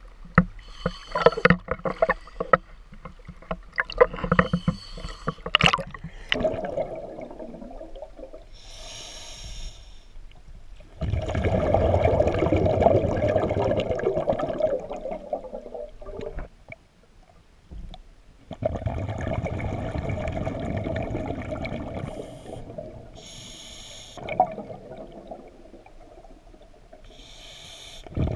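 Water splashing and sloshing at the surface for the first few seconds, then a scuba diver breathing through a regulator underwater: a short hissing inhale followed by a long burst of exhaled bubbles, repeating about every ten seconds.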